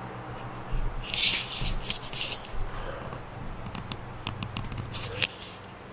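Rustling and scraping close to the microphone, then a run of small clicks and one sharp click near the end, over a faint steady low hum. It sounds like handling and movement noise.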